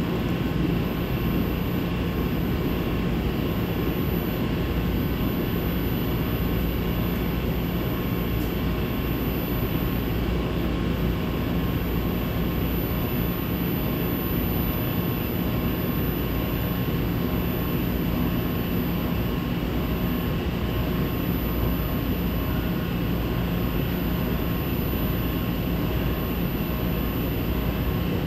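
SEPTA Market-Frankford Line subway train standing at a platform with its doors open, its onboard equipment humming steadily: a low drone with a few faint steady tones above it.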